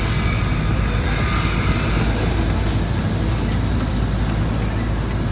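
Lixada butane cartridge stove's burner, just lit, burning with a steady flame noise.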